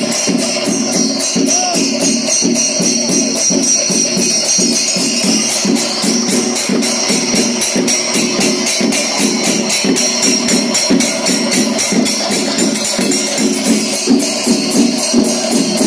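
Kerala temple percussion ensemble (chenda melam) playing: chenda drums and ilathalam cymbals beating a fast, steady rhythm that does not let up.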